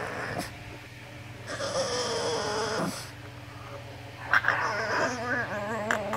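Pug making happy whining, warbling vocal noises in two bouts: one about a second and a half in, and a longer one with a wavering pitch starting a little past four seconds in.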